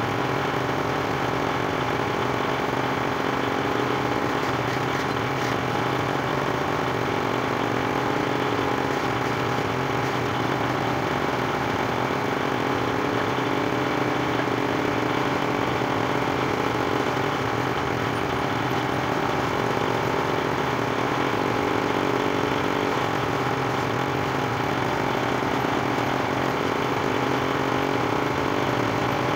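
Planer machine with a horizontal boring attachment running steadily, its chuck-held half-inch bit drilling holes into wooden table legs.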